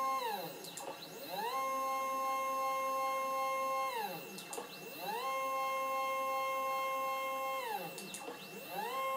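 Stepper motors driving a CNC-converted Proxxon KT150 cross table make a steady electronic whine while the axis feeds at constant speed. Three times, about every four seconds, the whine falls in pitch to a stop and rises again as the motors slow, reverse and speed back up.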